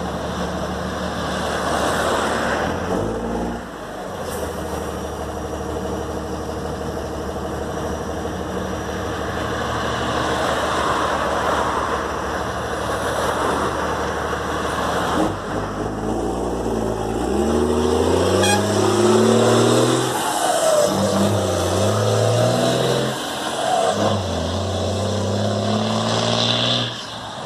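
Diesel trucks and cars driving past on a highway; in the second half a heavy truck pulls away under power, its engine note climbing, dropping at each gear change and climbing again several times.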